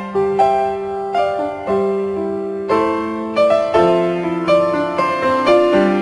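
Background piano music: single notes and soft chords played at an unhurried pace, each note struck and left to fade.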